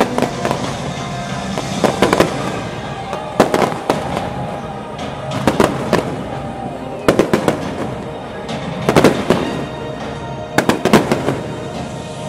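Fireworks going off: clusters of sharp bangs and crackles from bursting aerial shells, about every one and a half to two seconds. Music plays underneath.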